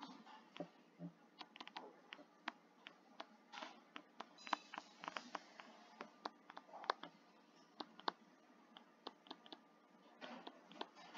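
Faint, irregular clicks and taps of a stylus on a tablet screen while handwriting is written out.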